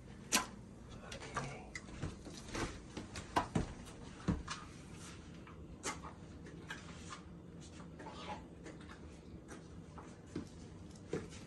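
Irregular light taps and scuffs, with a few sharper knocks in the first half: a dog in booties shifting and stepping about on a tile floor.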